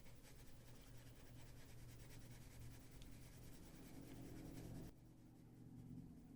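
Faint scratching of a Prismacolor colored pencil on paper as color is laid down, stopping about five seconds in.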